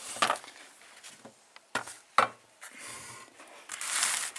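Metal engine parts, the gearbox shafts and an aluminium crankcase half, being handled with gloved hands: a few light clicks and knocks, the sharpest just after two seconds in, then a short rubbing scrape near the end.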